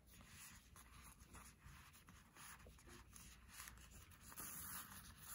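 Faint rustling and soft scraping of a satin ribbon being untied and pulled around a pen pouch by hand, a little louder near the end.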